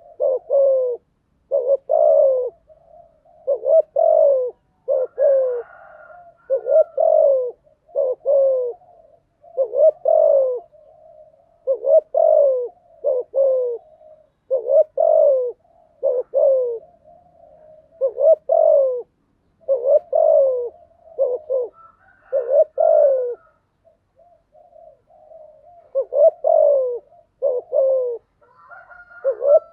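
Spotted dove cooing over and over, in short phrases of a few low coo notes, each note dipping slightly in pitch.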